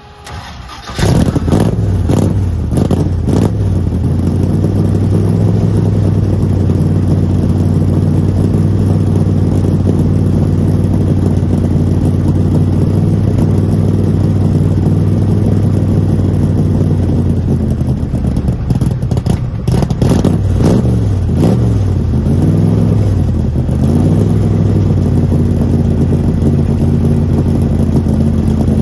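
Shelby Cobra CSX1000's 427 cubic-inch V8, exhausting through side pipes, fires up from cold about a second in and is blipped a few times before settling into a steady idle. Past the middle it is revved a few more times, then idles steadily again.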